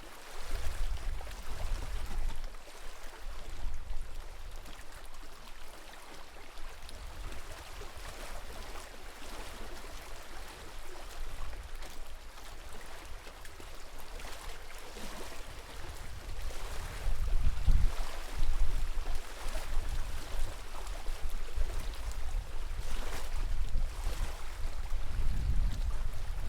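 Small waves lapping and splashing at the edge of a lake, with gusts of wind rumbling on the microphone that grow stronger in the second half.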